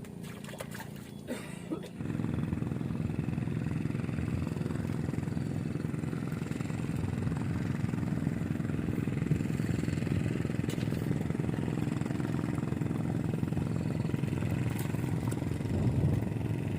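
An engine starts up suddenly about two seconds in and keeps running steadily at a low pitch.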